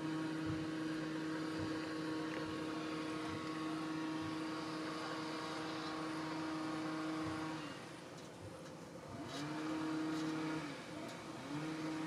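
Australian elephant beetle (Xylotrupes ulysses), a rhinoceros beetle, making a steady buzzing hum when disturbed, by rubbing its abdomen against the inside of its wings. One long hum of about seven and a half seconds slides up in pitch as it starts and sinks as it stops; after a short pause comes a second, shorter hum, and a third begins near the end.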